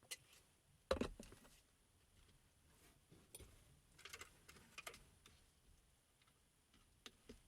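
Faint scattered clicks and knocks from small objects being handled, with the loudest knock about a second in.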